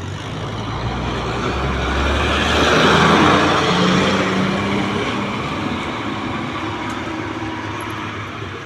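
Old diesel bus with a growling 'ngorok' exhaust driving past uphill under throttle. It grows louder to a peak about three seconds in, then fades as it pulls away.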